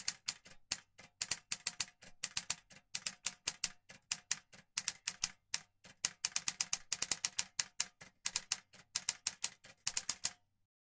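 Typewriter keystroke sound effect: rapid, irregular key clicks in quick runs with short pauses, stopping about ten seconds in, with a brief high ring just at the end.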